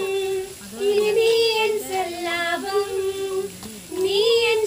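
Two women singing a song together from a lyrics sheet, in long held notes with short breaks between phrases.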